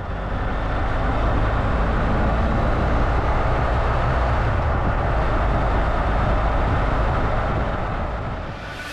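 Motorcycle riding along at a steady speed: the engine's low, even drone under a heavy rush of wind, easing off slightly near the end.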